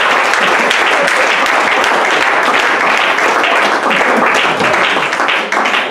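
Church congregation applauding: dense, steady clapping from many hands, dipping a little near the end.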